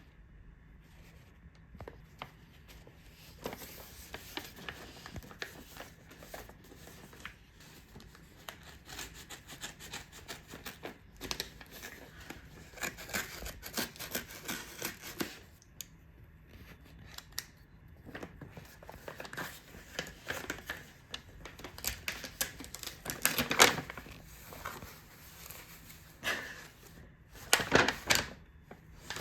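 Intermittent rustling, crinkling and light clicks of a delivered box and its packaging being handled, with louder bursts of crinkling about two-thirds of the way in and again near the end.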